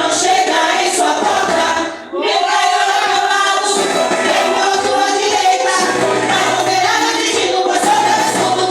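A women's vocal group singing a Portuguese gospel song over a recorded backing track, with a brief break about two seconds in.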